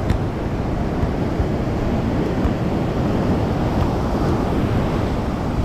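Steady rush of breaking ocean surf on a sandy beach, with wind buffeting the microphone.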